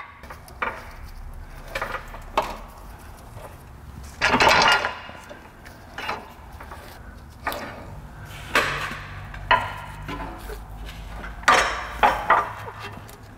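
Metal tools and car parts clinking and knocking as a mechanic works under a lifted car: a dozen or so irregular sharp knocks and clicks, with a longer, louder clatter about four seconds in.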